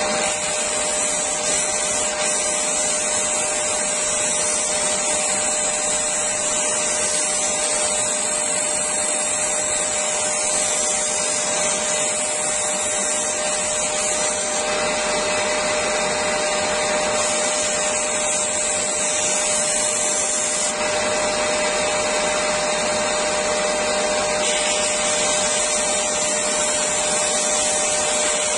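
Parkside PBTS 370 B2 belt and disc sander's induction motor running steadily while a piece of fir is pressed against the spinning sanding disc, with a connected vacuum extractor running at the same time. A steady hum with two held tones under a loud hiss.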